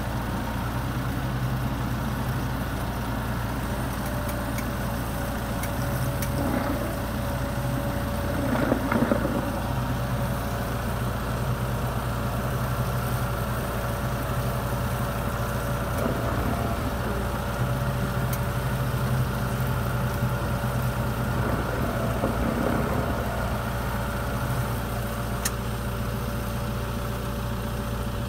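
Engines idling steadily: the lifeboat launch tractor and the lifeboat's outboard motors, with a steady thin whine joining about four seconds in and a few brief swells in level.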